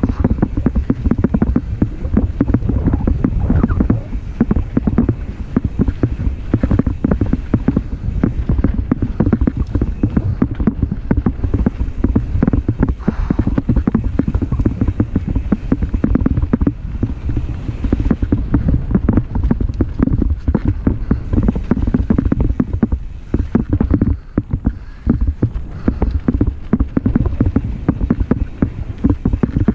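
Mountain bike descending a bumpy dirt singletrack at speed: wind buffeting the microphone and a constant rumble of tyres on dirt, with quick rattles and knocks from the bike over every bump.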